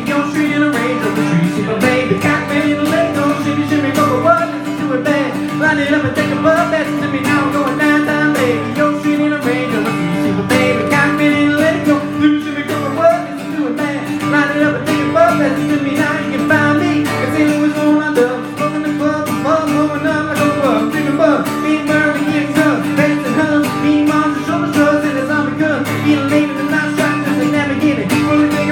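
Guitar music played live, an acoustic guitar strummed and picked continuously.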